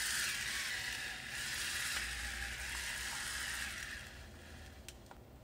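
Electric pepper mill running as it grinds black peppercorns: a steady whirring grind that fades out about four seconds in.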